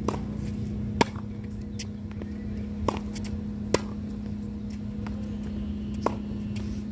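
Tennis balls being hit by racquets and bouncing on a hard court during a rally: five sharp pops, irregularly one to two seconds apart, over a steady low hum.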